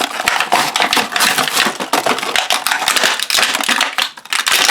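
Wrapping being crinkled and torn off by hand: a rapid, dense run of crackles and rustles.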